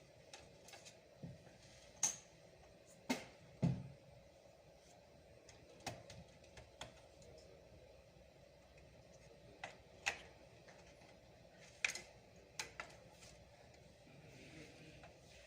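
Sparse, irregular sharp clicks and taps, about a dozen spread unevenly, over faint room noise.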